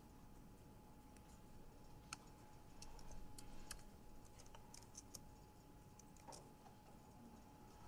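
Faint, scattered clicks of computer keyboard typing, busiest in the middle, over quiet room tone with a faint steady whine.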